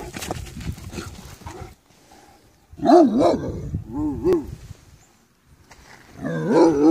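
Great Dane making short, arching play barks and woofs in three bouts, as if answering back, after a scuffle of movement on the ground at the start.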